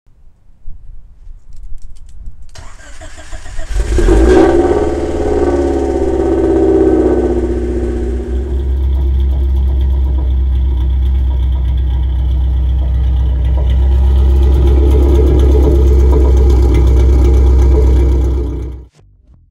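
Honda Civic hatchback's engine, breathing through Megan Racing headers and an aftermarket exhaust, starting up. It catches about four seconds in with a flare of revs, settles from about eight seconds into a steady, deep idle, and stops abruptly near the end.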